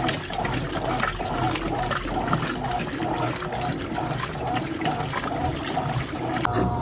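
Brastemp Clean washing machine churning water in its drum: a rhythmic sloshing, about two to three strokes a second.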